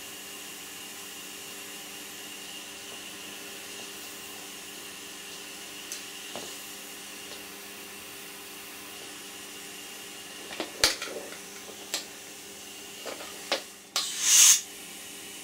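Compressed air from a paintball HPA tank hissing steadily out of a leaking connection at a 3D-printed air fitting on the marker. Near the end come a few clicks of the fittings being handled, then a short, loud blast of escaping air.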